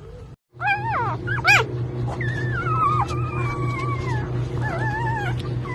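Newborn husky-mix puppies squealing and whimpering in high, wavering cries that start about half a second in, over a steady low hum.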